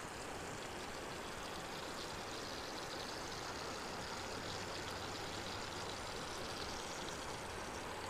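A rocky forest creek rushing steadily over stones.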